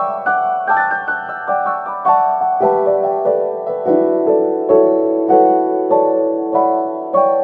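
Background piano music: a gentle melody of single struck notes, each ringing and fading, at an even, unhurried pace.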